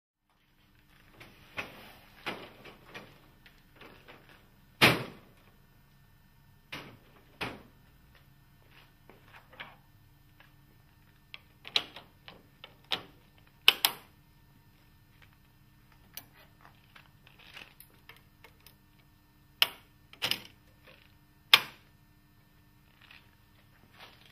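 Steel parts of Roto NT tilt-and-turn window hardware being fitted into the groove of a PVC window sash: an irregular series of sharp metal clicks and knocks as the pieces are pushed and snapped into place.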